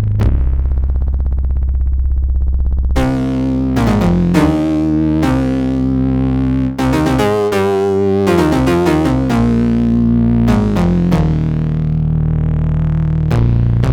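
Yamaha TG-77 FM synthesizer module playing a patch. A held low bass chord sounds, then from about three seconds in a line of sharply struck notes climbs and falls, runs quicker in the middle, and settles back onto a sustained low chord near the end.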